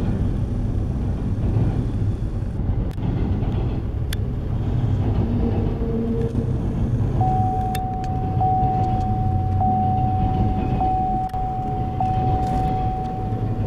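Double-stack intermodal freight train passing close by, heard from inside a car: a steady low rumble of wheels on rail with a few sharp clicks. A steady high tone joins about seven seconds in.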